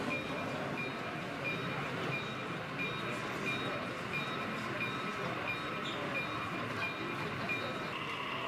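Model trains running on an exhibition layout, heard as steady hall noise, with a short high tone repeating about twice a second.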